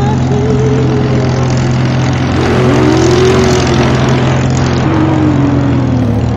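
Propeller aircraft engine drone over a steady low engine hum, its pitch rising and then falling as the plane passes, loudest and roughest in the middle.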